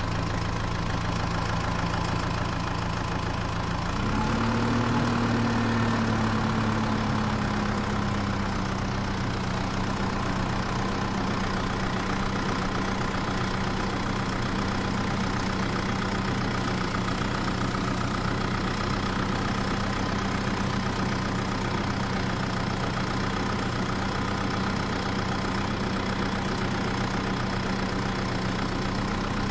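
Steady engine idling sound. About four seconds in it briefly rises in pitch, then eases back to a steady idle.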